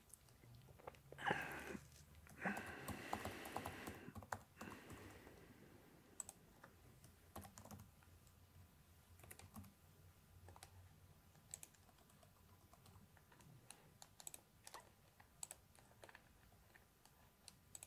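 Faint typing on a computer keyboard: a quick run of keystrokes between about one and five seconds in, then scattered single clicks.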